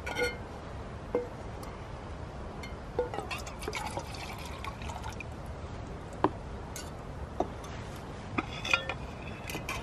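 Water poured from a cup into a metal mug, with light clinks and knocks as the mug is handled, over a steady low rumble of wind on the microphone.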